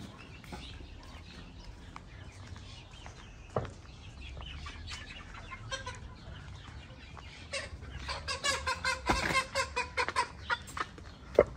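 Chickens clucking, breaking into a fast run of loud clucks and squawks about two-thirds of the way in, with a few sharp knocks, the loudest near the end.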